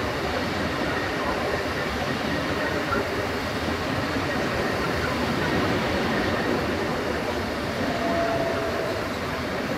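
PKP Intercity electric multiple units, a PESA Dart ED161 departing and an ED74 arriving, running on the track beside the platform. Their wheels and traction gear make a steady rumble, with a faint high tone about eight seconds in.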